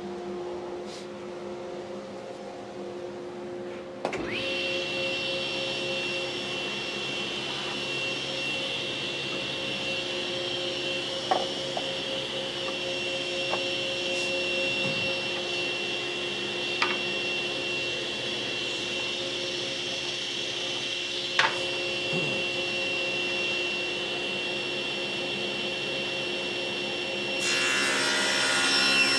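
Table saw switched on about four seconds in, spinning up and then running freely with a steady high whine over a low hum. Near the end the blade starts ripping a maple board, and the sound changes and grows louder.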